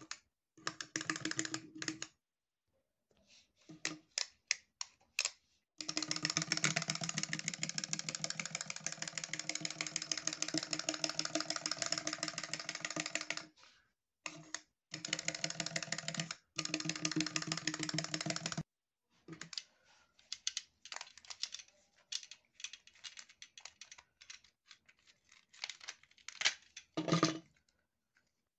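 Walking toy chick's mechanism running with a fast, even clicking, in runs of a few seconds that stop and start again. In the last third the clicking gives way to scattered, irregular clicks and rustles as the plush toy is handled.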